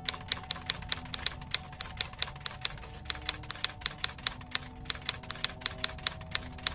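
Typewriter keys striking in a fast, even run of clicks, about five or six a second, typing out on-screen text.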